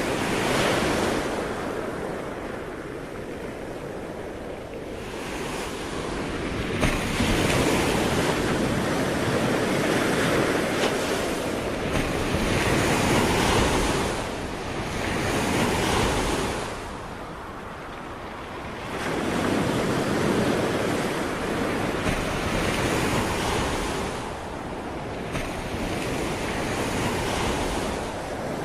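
Ocean waves breaking and washing onto the shore, the surf swelling and ebbing in several surges, with wind noise on the microphone.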